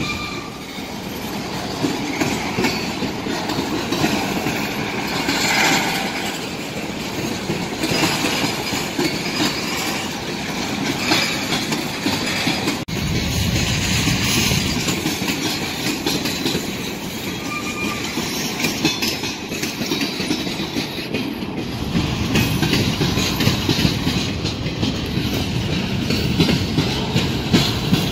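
Freight cars of a passing train (covered hoppers, boxcars, a centerbeam flatcar) rolling by: a steady rumble of wheels on rail, with rapid clicking as the wheels cross rail joints.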